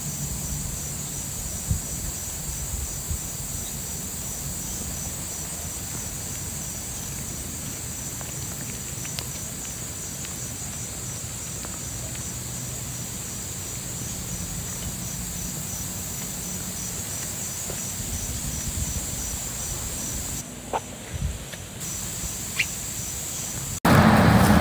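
Insects singing: a steady, high, pulsing trill over a low rumble, with a few faint clicks. About a second before the end it gives way abruptly to louder outdoor noise.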